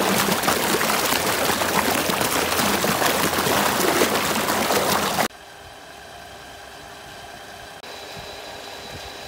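A large pipe outlet discharging pumped water in a steady, loud gush that splashes into the pond. The gush cuts off abruptly about five seconds in. After that comes a much quieter steady hum with a few steady tones from the belt-driven pump and its electric motor.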